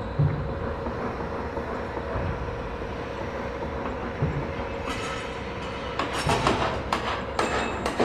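Construction site ambience: a steady rumble of machinery with a faint held tone, then metallic clanks and knocks starting about five seconds in and growing louder near the end.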